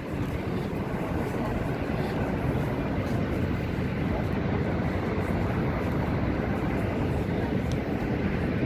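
Wind buffeting the microphone: a steady rushing rumble, heaviest in the low end and fluttering unevenly.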